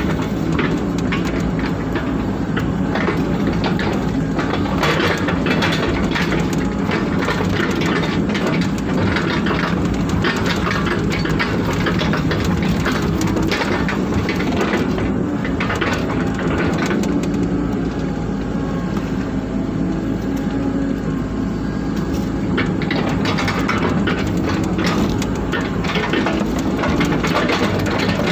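Hydraulic excavator's diesel engine running steadily under digging load, heard from inside the cab, with frequent clanks and rattles as the bucket works wet mud.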